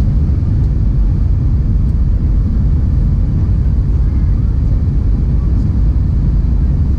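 Steady low rumble inside the cabin of an Airbus A320 in flight: the jet engines and the air rushing past the fuselage, heard from a window seat.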